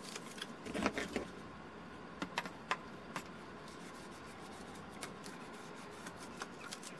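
Faint rustle of hinge tape being handled and stuck over a balsa control-surface hinge about a second in, then a few small sharp ticks and light scrapes as a metal tool rubs the tape down.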